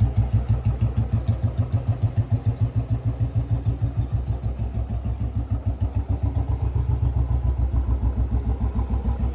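Royal Enfield Bullet 350's single-cylinder four-stroke engine running with a steady, even beat of about eight pulses a second. The drive chain is freshly lubricated and no chain rattle stands out.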